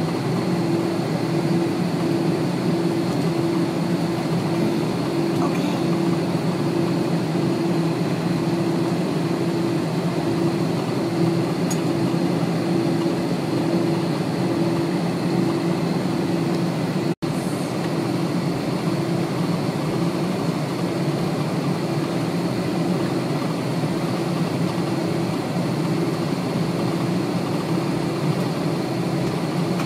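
Steady cabin noise of a jetliner taxiing: the engines' drone with a low hum that pulses about once a second. The sound cuts out for an instant about seventeen seconds in.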